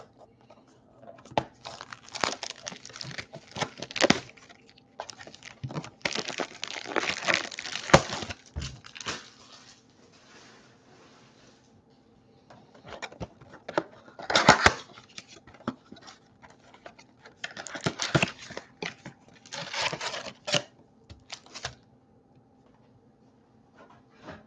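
A cardboard trading-card blaster box being torn open and its plastic wrap crinkled, in several bursts of tearing and rustling with short pauses between.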